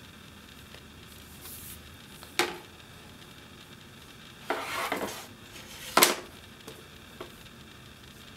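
A makeup brush handling a plastic eyeshadow palette: a couple of sharp clicks and knocks, the loudest about six seconds in, and a brief scratchy rubbing of the brush in a pan of powder shadow just before it.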